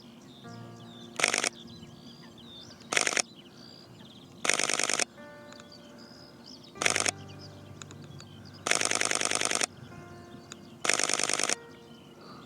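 Camera shutter firing in rapid bursts, six bursts of quick clicking from a fraction of a second to about a second long, from a Sony A7 IV mirrorless camera shooting a bird.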